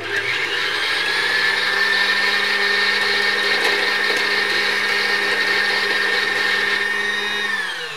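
Janome 2032 sewing machine's electric motor running flat out to wind a bobbin with the needle disengaged: a steady whine that spins up over the first second, holds, then winds down near the end. The bobbin has filled and stopped against its plastic stop while the motor keeps running.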